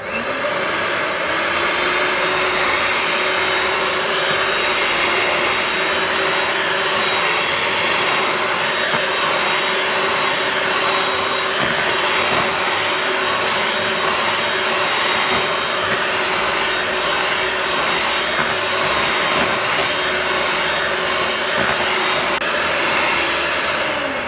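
Electric hand mixer running, its beaters churning thick cake batter. The motor starts up abruptly with a brief rising hum, runs steadily, and cuts off near the end.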